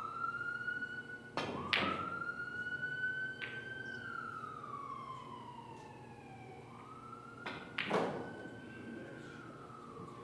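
An emergency vehicle siren wailing in the background, its pitch slowly rising, falling and rising again. Over it come sharp clacks of pool balls as a shot is played, about a second and a half in, and more sharp knocks near eight seconds in.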